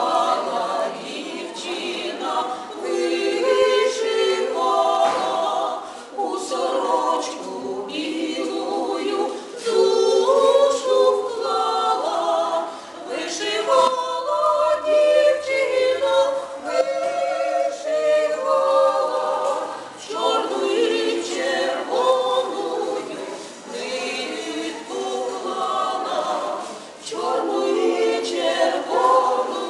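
Three older women singing together a cappella, a female vocal trio with several voices sounding at once and no instrumental accompaniment.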